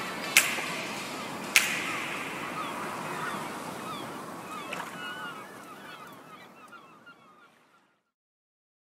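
Tail of a story-intro sound effect: two sharp whip-like cracks, then a noisy wash with many short bird-like chirps, dying away to silence about eight seconds in.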